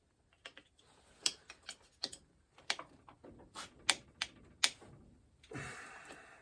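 Irregular sharp clicks and taps of a screwdriver and hard plastic parts as the mower's ECU connector is worked loose, with a short scraping rustle near the end.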